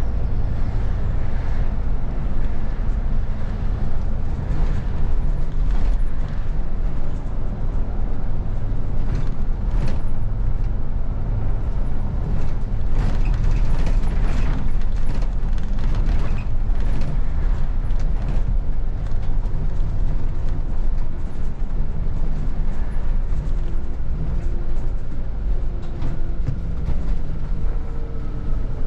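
A city bus driving, heard from the driver's cab: a steady low engine and road rumble, with rattles and creaks from the bodywork and fittings that come thickest in the middle.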